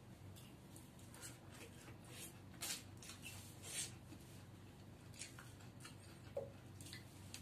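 Quiet wet eating sounds of a man chewing and sucking the flesh from cooked drumstick (moringa) pods: a few short smacks and clicks, over a steady low hum.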